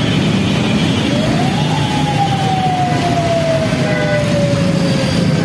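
Steady din of road traffic. A single siren tone rises about a second in, then winds slowly down over the next few seconds.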